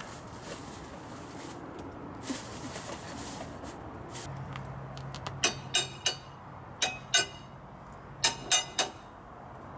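Metal tools and axle parts clinking during front-axle reassembly: about nine short, sharp ringing clinks in quick clusters over the second half, over a low steady hum.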